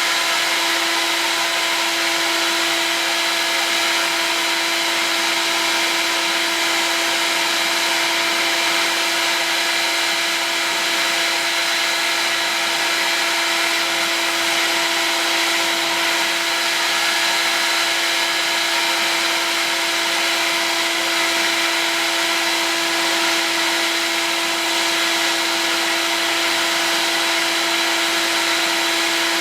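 Heat gun running continuously, heating acrylic tube to soften it for bending: a steady blowing rush with a constant motor whine over it.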